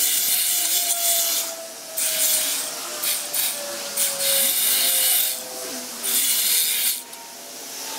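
Overgrown brush being cut back with a tool, in rasping bursts of about a second each, four or five in a row with short pauses between them. A faint steady tone slowly falls in pitch underneath.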